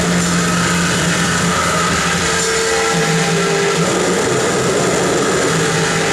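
Harsh noise played live on a table of effects pedals and electronics: a loud, unbroken wall of distorted hiss and grind, with low droning tones sliding in and out underneath.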